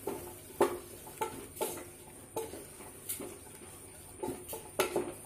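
A wooden spatula scrapes and knocks against an aluminium pressure cooker as crushed onions are stirred and sautéed, about two strokes a second. Each stroke gives a short metallic ring.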